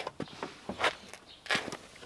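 A run of irregular clicks and knocks, with two louder crunching scrapes a little under a second in and about three-quarters of the way through.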